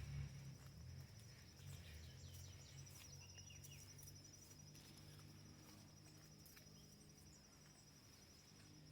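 Faint, steady high-pitched insect trill running throughout, with a few short bird chirps about three seconds in. A low rumble is loudest at the very start, then fades.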